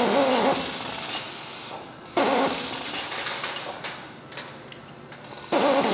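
Metallic clicking and clatter of hand tools working on a 20mm ammunition loader's feed mechanism, with a few sharp clicks near the middle and a sudden louder stretch twice.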